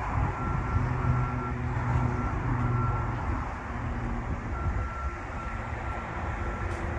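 Low rumble of a heavy vehicle's engine, with a high-pitched backup alarm beeping over it about twice a second. The beeping pauses for about a second and a half in the middle.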